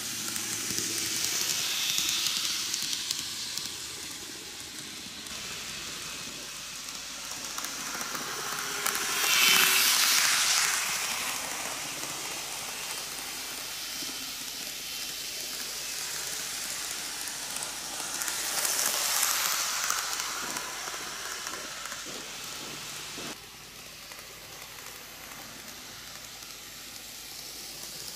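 N-gauge model trains, Shizuoka Railway A3000 and 1000 series models, running on curved superelevated track: a steady rolling hiss of small wheels on the rails, swelling louder three times, most of all about ten seconds in.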